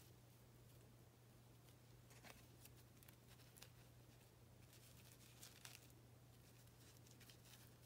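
Near silence: a steady low hum with a few faint rustles and light clicks as a bunch of feathers is handled and arranged.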